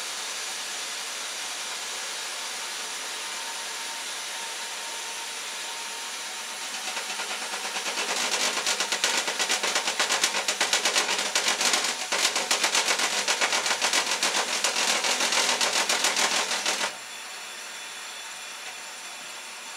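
Band sawmill running through a cut. About seven seconds in, a loud rapid clattering builds and goes on for about ten seconds: the band blade jumping off its wheel and breaking a tooth or two. It stops suddenly near the end, leaving a quieter steady hiss.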